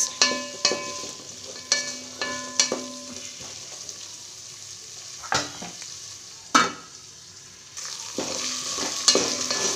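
Potato, carrot and onion pieces frying in oil in an aluminium pot: a steady sizzle, with a spatula scraping and knocking against the pot, which rings briefly after some knocks. The knocks come several times in the first three seconds and a few more later; the sizzle thins out in the middle and picks up again near the end.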